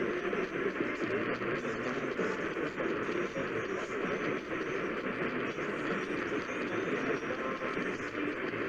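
Radio static: a steady hiss of noise from a radio receiver, with no tone or voice standing out.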